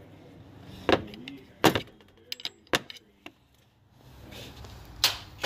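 A handful of sharp metal clinks and knocks at uneven intervals, as of hand tools and engine parts being handled, with a quiet spell past the middle.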